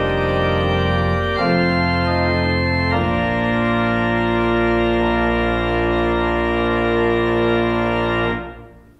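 Pipe organ played with manuals and pedals: sustained full chords over deep pedal bass, changing a few times and then ending on a long held final chord. Near the end the chord is released and rings away briefly in the church.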